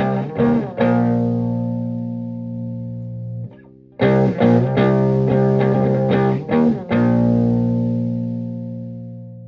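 Electric guitar (Stratocaster) played through a Höfner germanium preamp into a Fender Twin Reverb–style amp, with a slightly driven tone. It plays two short strummed phrases, each ending on a chord left to ring and fade, with a brief break between them about three and a half seconds in.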